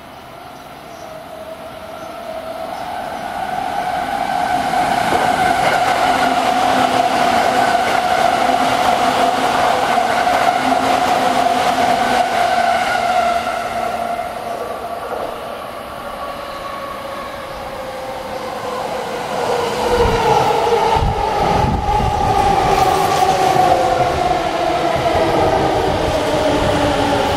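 E231-series electric commuter train pulling into the station: from about twenty seconds in, wheels thud over rail joints while a whine falls in pitch as it brakes. Before that, a steady train noise with a held tone swells up, then eases off shortly past the middle.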